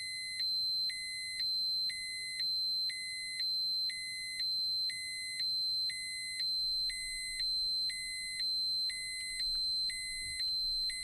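Electronic radiation dosimeter alarm going off, which signals that a set dose or dose-rate limit has been passed. A steady high-pitched tone sounds throughout, and a lower tone joins it for half a second about once a second, giving a regular pulsing two-tone beep.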